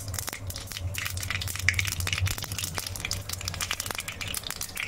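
Cumin and mustard seeds frying in hot oil in a steel kadhai, a dense steady crackle and sizzle of a tempering, with a low steady hum underneath.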